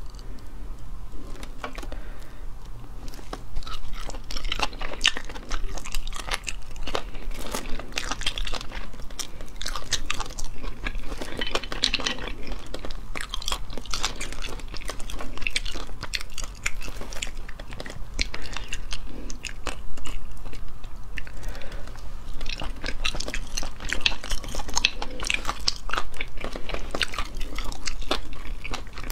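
Close-miked eating sounds: dense small clicks and crackles of a toothpick picking meat out of sauced snail shells and of the shells knocking together, with some chewing.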